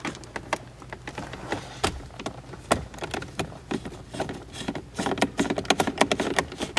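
Hand screwdriver turning a screw into the plastic dash trim of a C5 Corvette: a string of short, irregular clicks and scrapes, coming thicker near the end.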